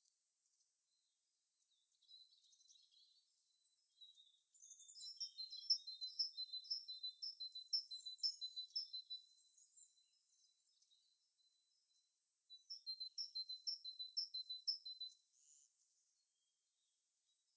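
A small songbird singing high, repeated notes in two quick runs, the first a few seconds in and the second after a short pause, with a few scattered chirps before them.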